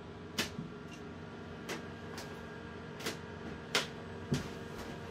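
Lathe X-axis drive under linear-scale closed-loop control, ticking sharply five times at irregular intervals over a steady hum. The ticks are the jitter you get when the closed-loop setting is turned up too far, with the axis hunting back and forth a few microns.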